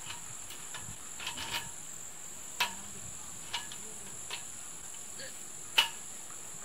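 Steady high-pitched chirring of insects, with a few sharp knocks at irregular intervals, the loudest one near the end.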